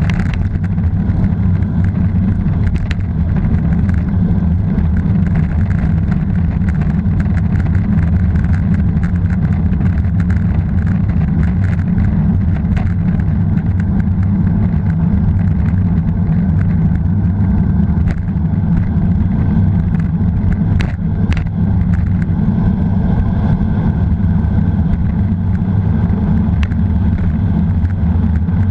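Wind buffeting an action camera's microphone on a road-bike descent at 40 to 55 km/h, a loud steady low rumble. There are a couple of short knocks about three quarters of the way through.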